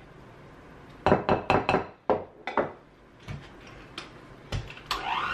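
Kitchen utensils knocking and scraping against a glass mixing bowl and a plastic tub: a quick run of taps just after a second in, then fewer, lighter taps. A short musical jingle starts near the end.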